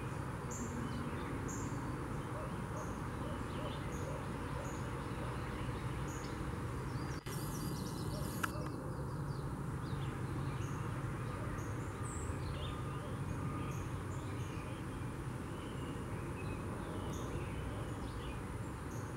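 Spring songbird chorus, with Yellow-rumped Warbler, Northern Cardinal, Red-eyed Vireo and Carolina Wren among the singers: short high notes repeat about once a second over a steady low rumble. A click and a brief rustle about seven to eight seconds in.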